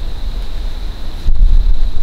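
Wind buffeting the microphone: a loud, uneven low rumble that grows louder about a second in, with a faint steady high-pitched whine under it.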